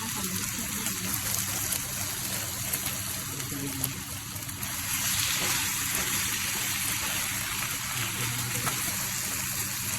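Water running steadily from a kitchen tap into a sink, a little louder from about halfway through.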